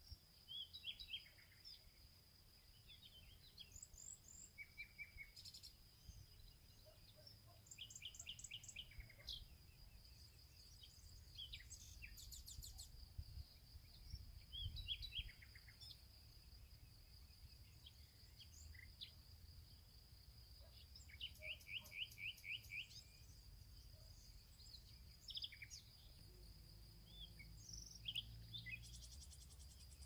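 Faint outdoor ambience of songbirds chirping and trilling in short scattered calls, over a steady high insect drone and a low rumble.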